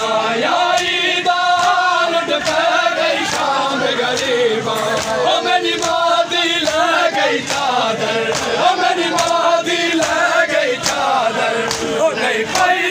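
Men chanting a Shia noha in unison, led by a lead reciter, with a steady beat of matam chest-beating slaps a little over one a second.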